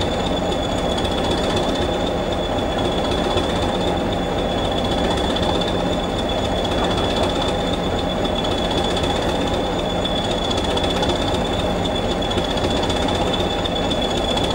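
Diesel locomotive engine running steadily, with a steady high whine over the engine noise.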